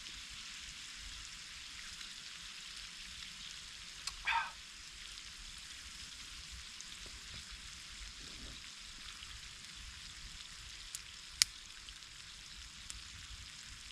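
Potatoes sizzling steadily as they fry in butter in a pan. A short pitched sound comes about four seconds in, and a single sharp click, the loudest moment, about eleven seconds in.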